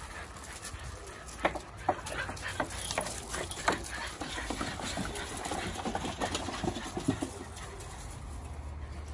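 Puppies scrambling on and through a corrugated plastic drainage pipe: irregular knocks and scratches, with a few short puppy yelps mixed in.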